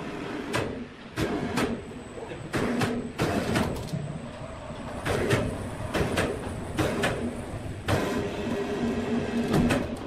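Sawmill machinery running with a steady hum, broken by frequent, irregular clunks and knocks.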